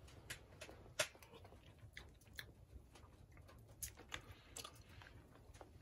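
Quiet eating sounds: chewing and scattered light clicks of cutlery on dishes, the sharpest about a second in.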